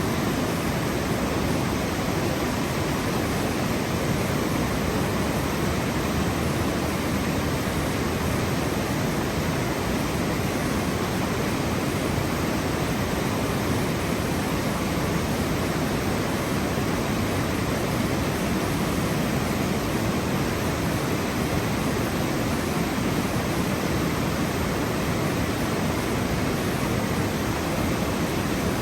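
Steady, unbroken rush of flowing water, even and constant with no swells or separate splashes.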